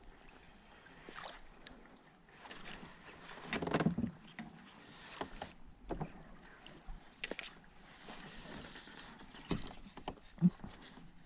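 Scattered light knocks and clicks on a plastic fishing kayak's hull and fittings while a hooked bass is reeled up beside the boat, with a brief louder rush of noise about four seconds in.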